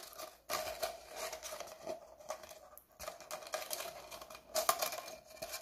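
Light, irregular plastic clicks and crinkles as fingers work a cut PET bottle and a plastic cable tie being threaded through it.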